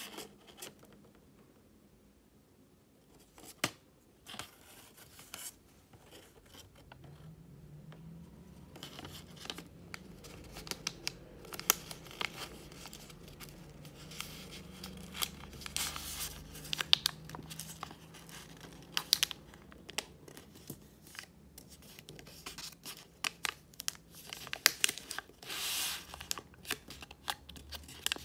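Origami paper being folded and creased by hand: crisp rustles, crinkles and sharp snaps as folds are pressed. A few sounds at first, then busier from about a third of the way in.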